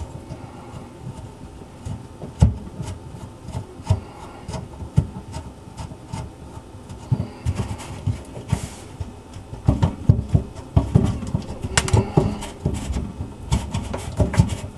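Irregular clicks, knocks and scrapes of tools and metal parts as the old kitchen sink strainer basket assembly is worked loose, getting busier in the last few seconds.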